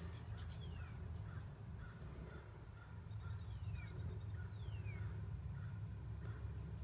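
Birds calling: clear whistles sliding down in pitch, and a rapid clicking chatter about halfway through, over a steady low rumble.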